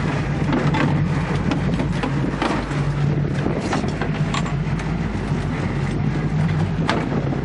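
A boat's engine running with a steady low hum, and scattered knocks and rattles from a landed lingcod being handled in a landing net on the deck.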